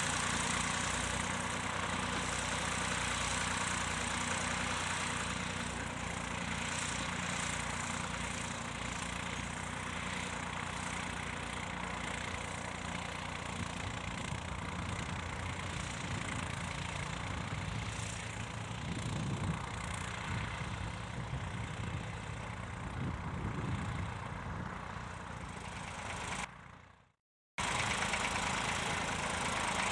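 Vintage tractor engine running steadily at a low, even pace. The sound fades out for about a second near the end and cuts straight back in.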